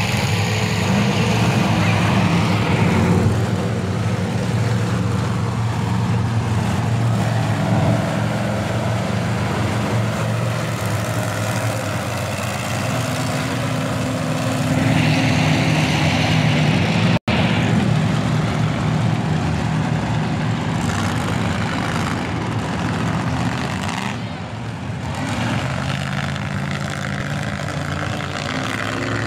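Monster truck engines running and revving on the track, their pitch rising and falling, with crowd noise from the stands. The sound cuts out for an instant about seventeen seconds in.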